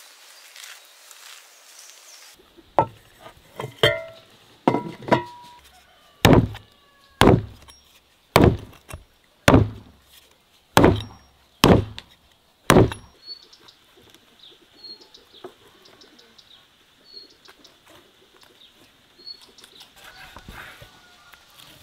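A large knife chopping through a rack of lamb on a wooden board: about a dozen loud chops, roughly one a second, stopping about halfway through. Faint bird chirps follow, with softer cutting near the end.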